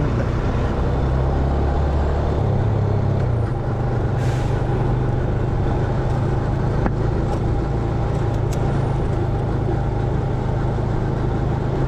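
Motor scooter engine running at cruising speed with road and wind noise. The engine note steps up about two and a half seconds in. A brief hiss comes about four seconds in.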